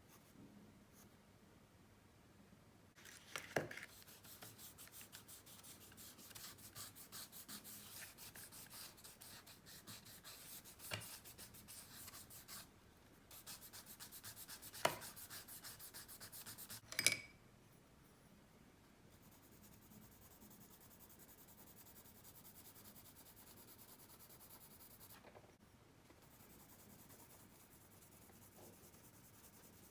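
Pencil on paper: quick back-and-forth shading strokes, broken by a few sharper taps of the pencil. Later the strokes give way to a softer, steady rubbing on the paper.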